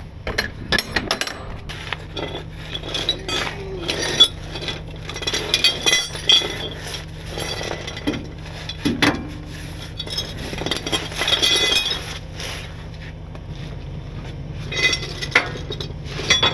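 Steel tow chain and J-hooks clinking and clanking as they are handled and hooked to the underside of a truck: an irregular run of metallic clinks and knocks over a steady low hum.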